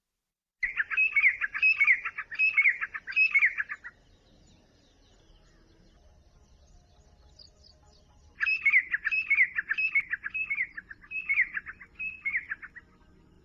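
Grey partridge (grey francolin) giving its rising call at daybreak, which claims its night roost: a series of loud, shrill notes repeated about once or twice a second. The calling stops about four seconds in and starts again about eight seconds in.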